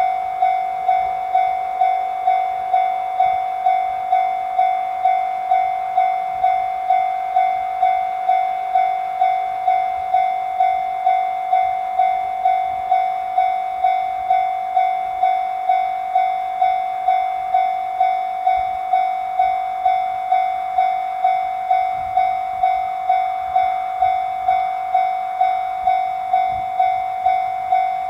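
Railway level-crossing warning bell ringing steadily, a single high tone struck about three times every two seconds, each ring starting sharply and fading fast: the crossing signal for an approaching train.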